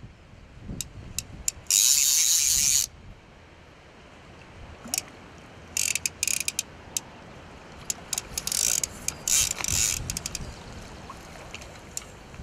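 Centre pin reel's ratchet buzzing as the spool turns while a carp is played on it. It comes in loud bursts of a second or less, the longest about two seconds in, with scattered single clicks between.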